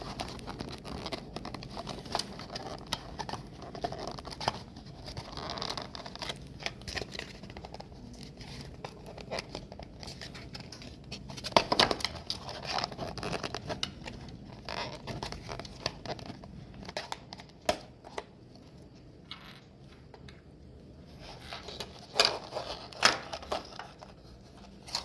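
Toy car packaging being handled and torn open by hand: crinkling and tearing with scattered clicks and knocks, with louder bouts of handling about halfway through and again near the end.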